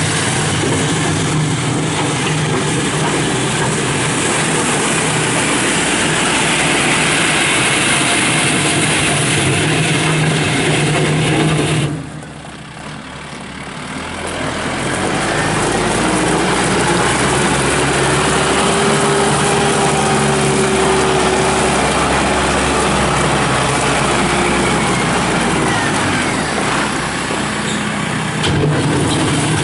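Kubota M6060 tractor's four-cylinder diesel engine running as the tractor drives around. The sound drops away sharply about twelve seconds in, then builds back up over a few seconds and runs steadily again.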